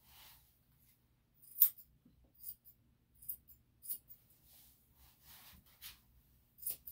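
Curved grooming shears snipping a dog's facial hair: about seven short, sharp snips at uneven intervals, the loudest about one and a half seconds in.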